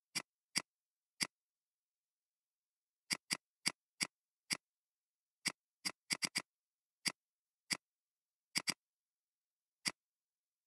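Computer mouse clicks, about eighteen short sharp clicks spread unevenly, some in quick pairs and a fast run of four, with dead silence between them.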